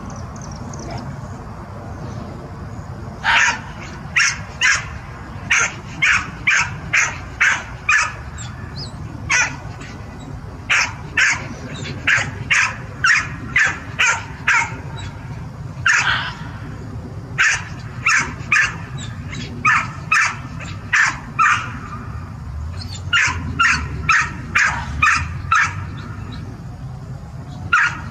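An animal giving short, sharp, high-pitched barks in quick bouts of six to eight, about two to three a second, with brief pauses between bouts.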